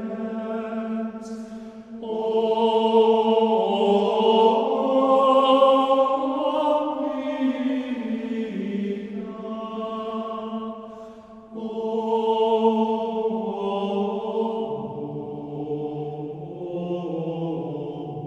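Slow choral chant, voices holding long sustained notes, with a new phrase beginning about two seconds in and again at about eleven and a half seconds.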